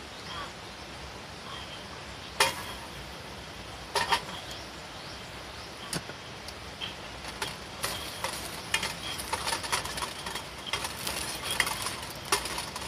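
Garlic cloves frying in hot oil in a US military mess kit pan over a wood fire. There are a few sharp knocks in the first half as the cloves go in, then a crackling sizzle that grows busier after about eight seconds, with tongs stirring the garlic near the end.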